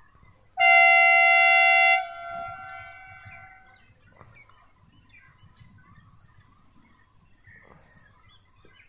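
HGMU-30 diesel locomotive's horn sounding one loud, steady single-note blast of about a second and a half, its sound trailing away over the next two seconds. Faint birds chirp afterwards.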